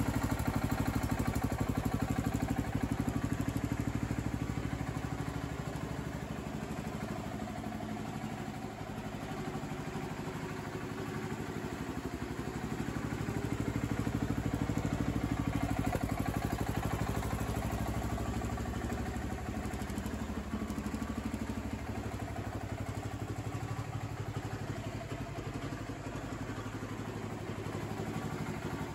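1977 John Deere 300 garden tractor's single-cylinder, air-cooled Kohler K341AQS engine idling steadily, cold and not yet run up past idle.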